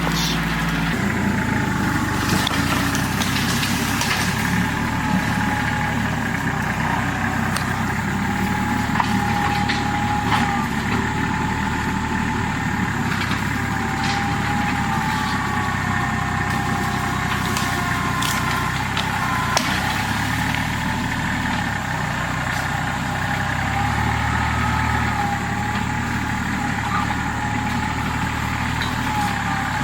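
A machine's engine running steadily while it clears brush, with a wavering whine and scattered sharp cracks of snapping brush and wood.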